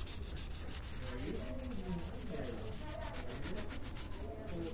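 A cloth rubbing back and forth over the painted steel chassis rail of a 1961 Scania 75 truck, a soft, even scrubbing.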